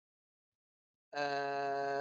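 Silence, then about halfway in a man's drawn-out hesitation sound, "uhh", held at a steady low pitch for about a second and sagging slightly as it fades.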